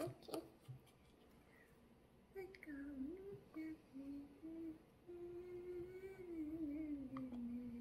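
A person humming a wandering tune in a low voice, in short notes at first and then a longer line that slides downward near the end, with a few light taps in the first second.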